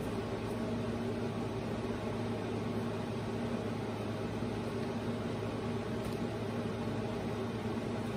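Steady low machine hum with an even hiss, unchanging throughout.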